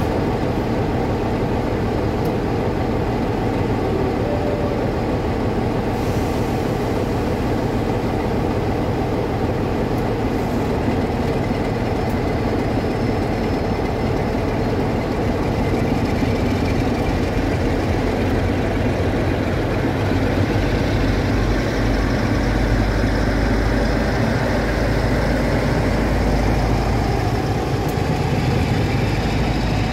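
Two Class 47 diesel locomotives' Sulzer twin-bank 12-cylinder engines running as the train pulls slowly away. The deep engine rumble grows louder in the second half as power is applied and exhaust smoke rises.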